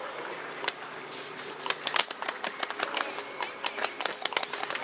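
Rapid, irregular sharp clicks and pops from radio-controlled model warships' BB cannons firing in volleys, with BBs striking the hulls.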